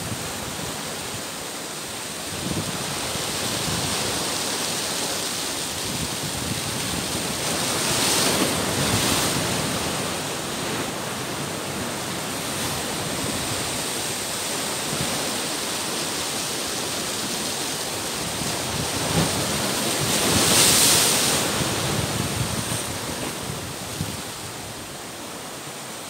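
Sea surf washing and breaking around rocks, a continuous rush of foaming water that swells louder twice, about eight seconds in and again about twenty-one seconds in.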